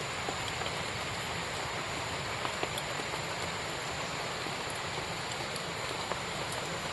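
Steady rain falling, an even hiss with scattered drops ticking on surfaces.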